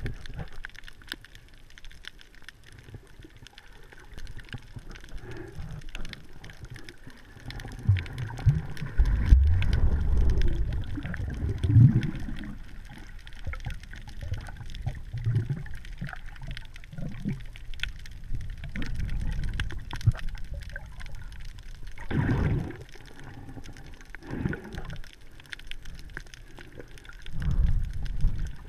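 Underwater sound heard through a camera's waterproof housing: low, muffled water movement that swells in several surges, loudest about a third of the way in and again near the end, with a scattered crackle of faint clicks throughout.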